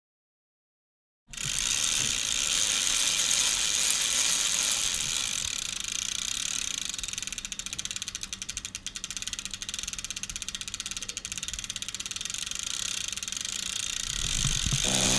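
Bicycle rear wheel and chain turning, the freewheel hub's ratchet clicking rapidly as the wheel spins freely; it starts about a second in, and the clicking is densest in the middle.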